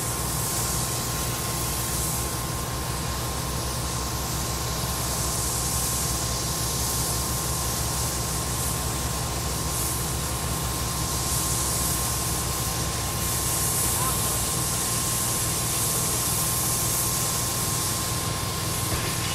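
Demolition site ambience: a steady low machine rumble with a constant hiss and a thin, unchanging high whine over it.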